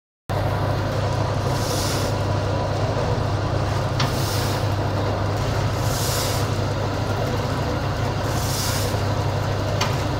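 Automatic pouch packing machine running through its cycle, with a steady low hum. A short hiss comes roughly every two seconds and a sharp click is heard twice.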